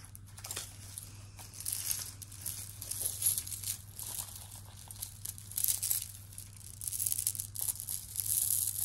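Hands sorting through a pile of costume jewelry: beads, chains and metal pieces rustling and clinking against each other in irregular spells, as a long bead necklace is pulled from the heap.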